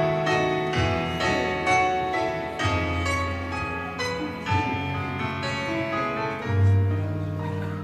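Piano music: a run of sustained chords over deep bass notes that change every second or two.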